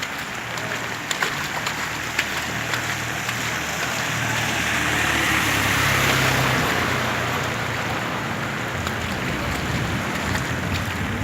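Heavy rain falling steadily, a dense hiss with scattered sharp drop hits. A low hum swells in the middle and fades again.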